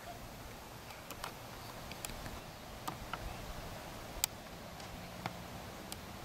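Light clicks and taps at uneven intervals over a faint outdoor background, with one sharper click about four seconds in: a German Shorthaired Pointer's claws on a wooden agility dog-walk ramp.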